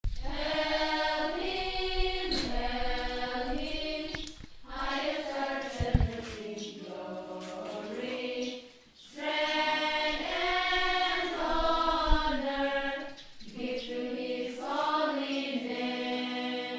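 A group of children singing a slow song together, in long sustained phrases with short pauses between them. Two brief low thumps come through under the singing, about six and twelve seconds in.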